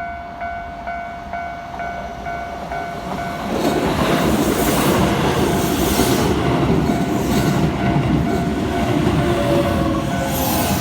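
Japanese level-crossing warning bell ringing about twice a second. A train reaches the crossing about three and a half seconds in, and its loud rumble and rail noise cover the bell.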